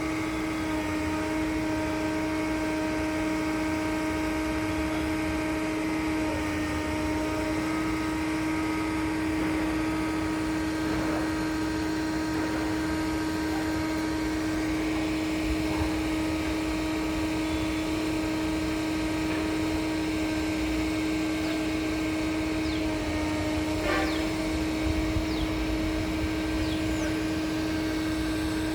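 Concrete pump machinery running with a steady, unchanging hum.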